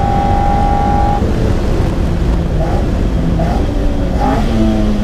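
Car driving in traffic: steady engine and road noise, with a held tone that stops about a second in.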